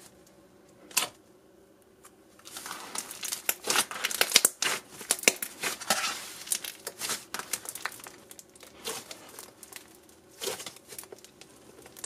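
Butter-texture clay slime with crunchy snow mixed in, squeezed and kneaded by hand, crackling and popping. There is a single pop about a second in, dense crunchy crackling from about two to eight seconds in, then sparser pops.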